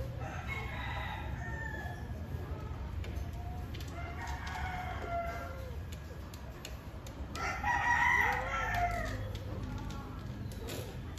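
Cat in heat yowling during mating: three drawn-out, wavering calls a few seconds apart, the third the loudest.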